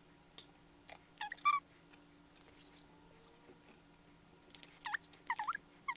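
Short high chirping calls from an animal, a few about a second in and a quick run of them near the end, over a faint steady hum. Light clicks of pins and fabric being handled.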